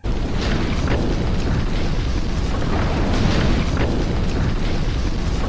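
Wildfire sound from a film soundtrack: a steady, dense rumble of burning with faint crackles, possibly under music.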